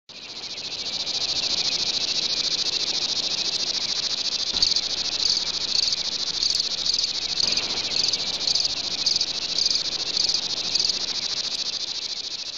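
Crickets chirping: a dense, continuous high trill that fades in at the start, with louder pulses about twice a second from roughly a third of the way in.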